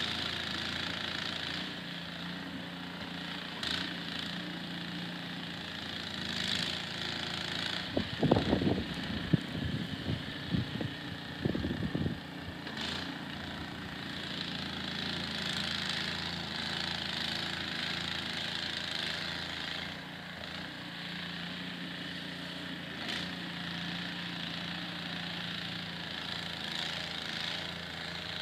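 Small gas engine running steadily, typical of a snowblower clearing snow, with a hiss over the engine note. A run of loud knocks and thumps breaks in about a third of the way through, lasting a few seconds.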